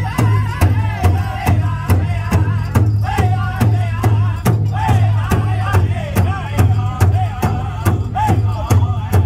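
Powwow drum group singing over a large hand drum struck in a steady beat, about two to three strokes a second.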